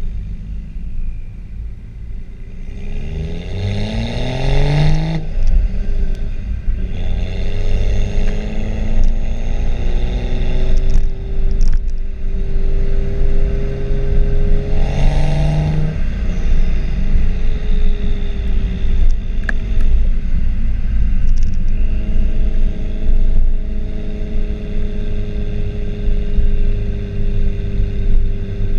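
Stock exhaust of a BMW E93 335i's turbocharged straight-six, heard at the tailpipe while driving. The revs climb under acceleration twice, each pull cut off by a gearchange, then the engine holds steady at cruise, over a constant low rush of wind and road noise.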